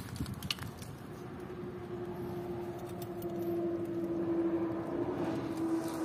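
A steady engine hum on one pitch, growing slowly louder over a few seconds, with a few faint clicks near the start.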